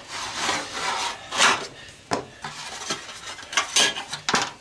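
A knife blade scraping and prying at a glued-in part of a washing machine being stripped for scrap: a run of rasping scrapes, the loudest about one and a half seconds in, with a few sharp clicks in the second half.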